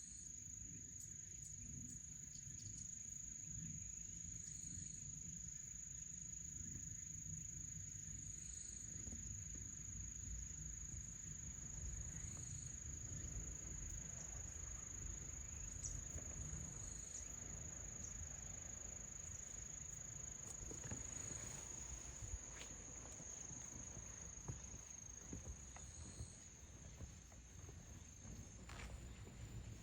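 Singing insects: a steady high-pitched trill, with a softer call repeating every few seconds, over a low rumble.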